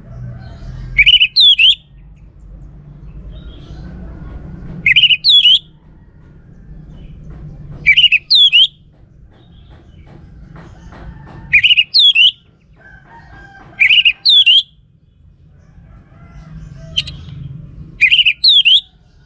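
A songbird repeating the same short, sharp two-part call six times, about every three to four seconds, each a quick high note followed by a falling-then-rising sweep, over a low, steady background rumble.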